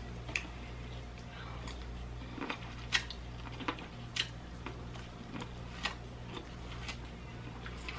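Close-miked eating sounds from biting and chewing corn on the cob: scattered crisp clicks and crunches at irregular intervals, over a steady low hum.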